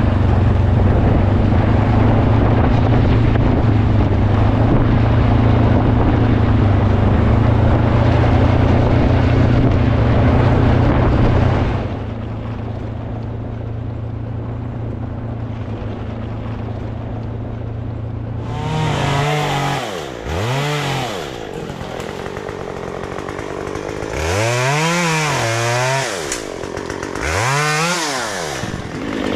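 Two-stroke chainsaw running steadily at a high, even pitch, then dropping back to a quieter run about twelve seconds in. In the last ten seconds it is revved up and down three times, as when cutting.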